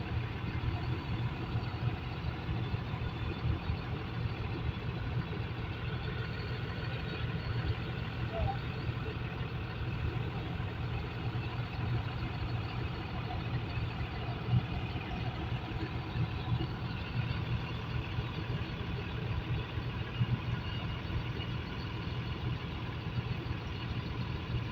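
Heavy vehicle engine running steadily at low speed, a constant low hum.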